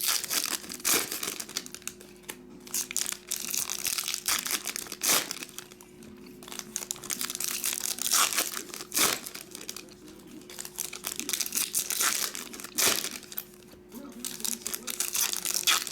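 Foil trading-card pack wrappers being torn open and crumpled: irregular crinkling with a few sharper crackles every few seconds.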